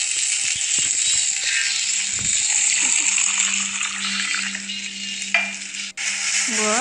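A steady sizzle of food frying in a pan on a gas burner, with a low steady hum joining about two seconds in. The sound breaks off sharply near the end.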